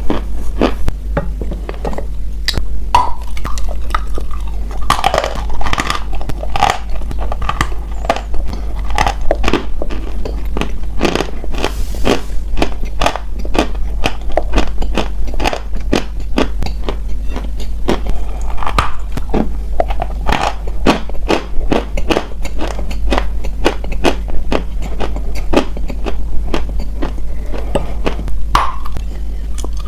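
Close-miked crunching as lumps of a chalky solid are bitten and chewed, with sharp crunches following one another without a break. A steady low hum runs underneath.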